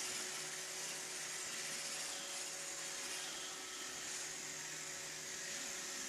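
iRobot Roomba 761 robot vacuum running across a hardwood floor: a steady hiss from its vacuum motor and brushes, with a faint hum underneath.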